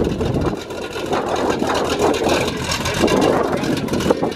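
Engine of a 1970s four-speed drag car running as the car backs slowly out of a driveway. The deep low rumble eases about half a second in.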